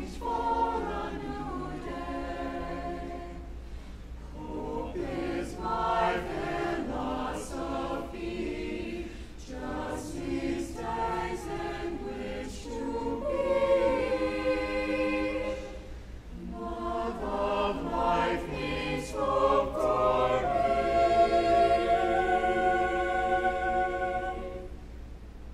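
Mixed chamber choir singing a cappella, in several parts. It builds to a chord held steady over the last few seconds, which is released near the end.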